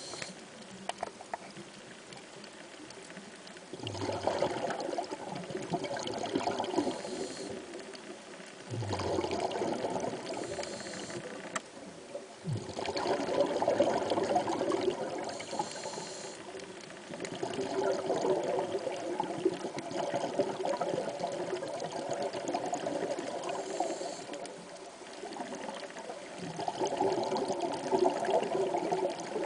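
Sea water washing in repeated surges, each swelling up and lasting a few seconds, about every four to five seconds.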